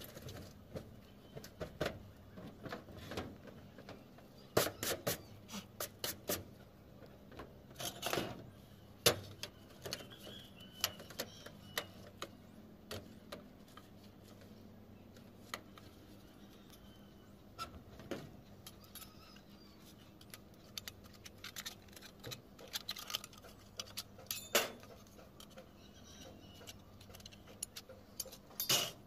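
Irregular light clicks, taps and scraping from hand work on a corrugated metal roof sheet, with a few sharper knocks among them.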